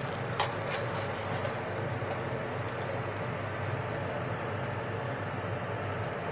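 Steady hum of a commercial kitchen's background, with one light clink of a metal fish slice against a pan about half a second in and a few faint ticks of utensils afterwards.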